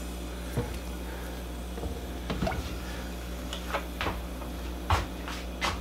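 Olive oil being poured into a large nonstick pot: quiet kitchen handling, with a few faint clicks and light taps spread through it over a steady low hum.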